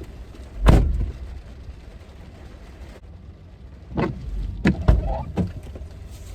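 Thumps and knocks in and around a car: one heavy thump like a car door shutting a little under a second in, then a quick cluster of four more knocks and thumps past the middle.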